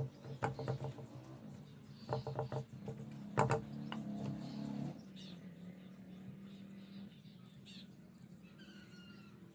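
Background music: plucked notes over low held tones for about the first five seconds, then one lingering tone. A few faint bird chirps come in near the end.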